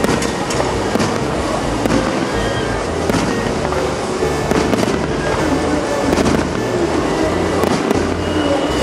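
Aerial fireworks bursting overhead, a rapid, irregular string of bangs.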